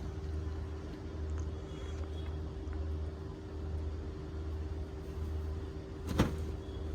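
Steady low background hum with a faint steady tone above it, and one sharp click about six seconds in.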